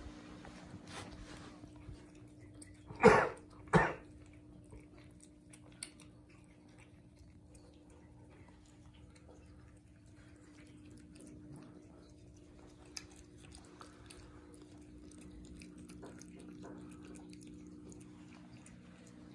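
Grey tabby cat eating wet cat food from a plastic bowl, with faint, irregular chewing and licking clicks. Two short, loud sounds come close together about three seconds in.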